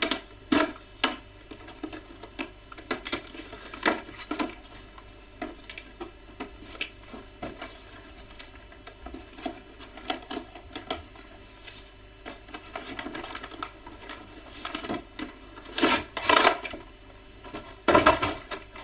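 Action-figure packaging being opened by hand: irregular clicks, crackles and rustles of cardboard and plastic being pried apart and torn, with a louder crinkling flurry near the end.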